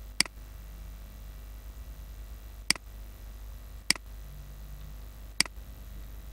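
Computer mouse button clicking four times, a second or so apart, over a steady low hum.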